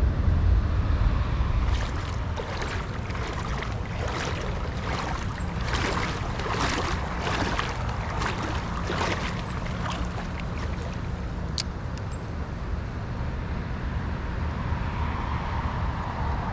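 Creek water splashing in a run of short uneven surges, over wind rumbling on the microphone that is heaviest at the start, with one sharp click about two-thirds of the way through.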